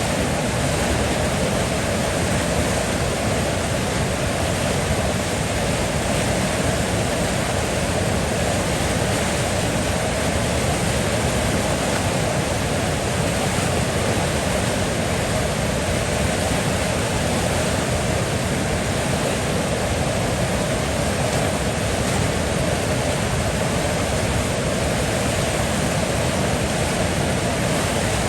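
River water flowing, a steady unbroken rushing with no splashes or changes.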